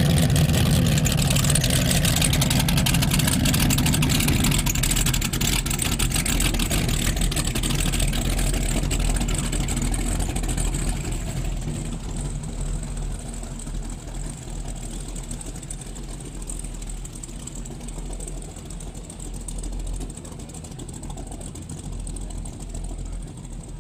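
Engines of performance powerboats idling with a steady low exhaust rumble, which drops to a quieter level about halfway through.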